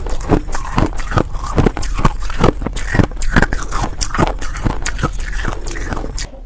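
Close-miked chewing of frozen buckwheat reshaped ice: a steady run of crunches, about three to four a second, crunchy and powdery.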